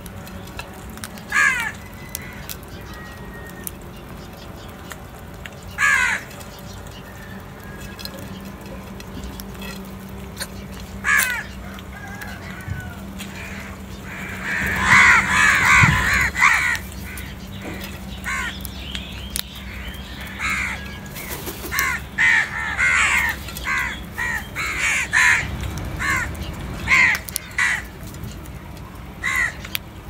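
House crows cawing: a few single caws spaced several seconds apart, then a burst of many overlapping caws about halfway through, and frequent caws through the second half. A steady low hum runs underneath.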